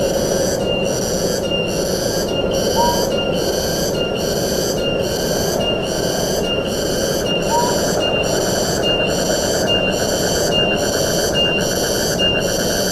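Forest ambience: a steady rush of wind through the trees, with a high pulsing call repeating about twice a second and a short rising whistle heard twice.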